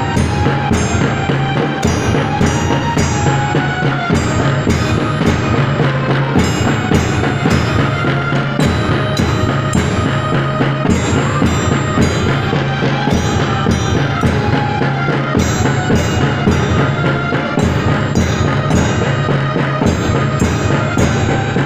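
Marching music with a steady, even drumbeat and a melody over it.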